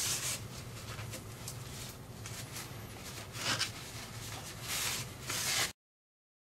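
A rag scrubbing and wiping gunk out of an oil passage in the top of a lathe's gearbox housing: scratchy rubbing strokes, the loudest about three and a half seconds in and just before the end, over a steady low hum. The sound cuts off abruptly shortly before the end.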